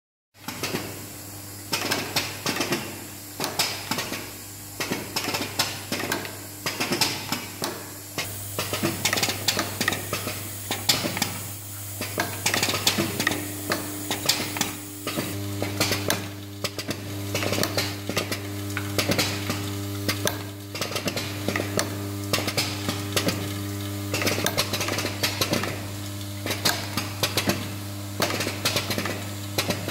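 Automated parts-feeding machine running: a vibratory bowl feeder's steady low hum under continuous rattling of small metal parts, with pneumatic handling units clacking in a quick repeating cycle.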